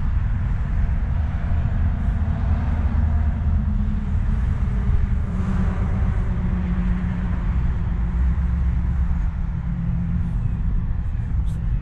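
Steady rumble of highway traffic, with one vehicle passing about halfway through, its engine tone gliding as it goes by.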